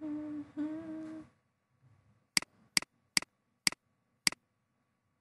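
A person hums for about a second at a held pitch. After a short pause come five sharp single clicks, roughly half a second apart, typical of a computer mouse button clicked again and again while sampling colours and painting.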